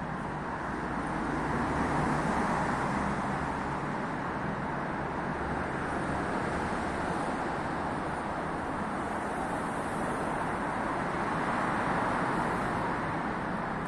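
Steady rumble of vehicles with no distinct events, swelling a little about two seconds in and again near the end.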